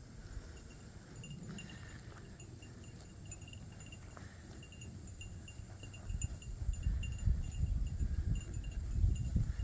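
Insects chirping in short repeated groups over a steady high insect drone, with an irregular low rumble on the microphone that grows louder in the last few seconds.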